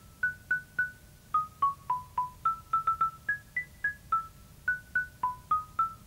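A simple tune picked out note by note on a high-pitched mallet instrument. The single struck notes come at about three a second, each ringing briefly.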